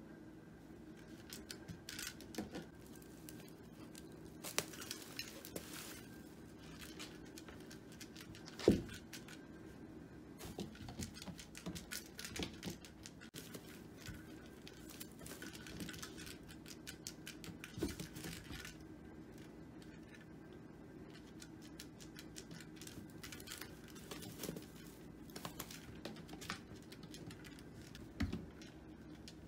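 A kitten playing with a toy on a carpet scratching pad and around a fabric cat tunnel: scattered light taps, scratches and rustles, with one sharper knock about nine seconds in, over a low steady hum.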